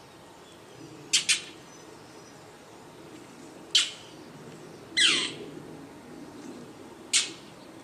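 Northern mockingbird fledgling giving harsh, raspy begging squawks for food, about five short calls spaced a second or two apart. One is a quick double and one is longer and slides downward.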